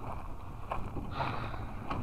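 Footsteps crunching on gravel at a walking pace, about two steps a second, over a low rumble of wind on the microphone.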